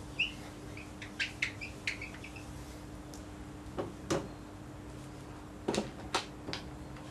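Whiteboard marker squeaking and tapping against the board in short strokes as equations are written, with a few sharper taps about four and six seconds in.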